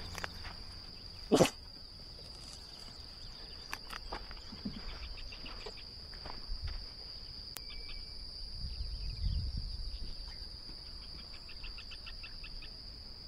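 Steady, high-pitched insect drone, with one sharp knock about a second and a half in and a few faint clicks.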